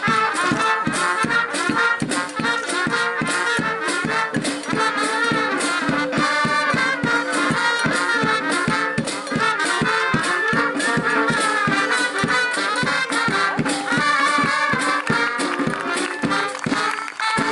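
Brass band music: horns playing a tune over a steady, quick drumbeat.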